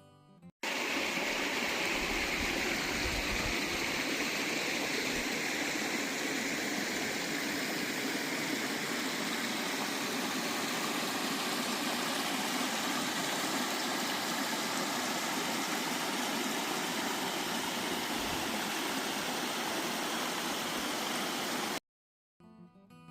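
Kitchen Creek Falls: a steady, even rush of falling water. It cuts in abruptly just after the start and cuts off abruptly near the end.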